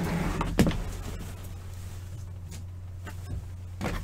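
A few light clicks and knocks from handling things on a table, the clearest about half a second in and just before the end, over a steady low electrical hum.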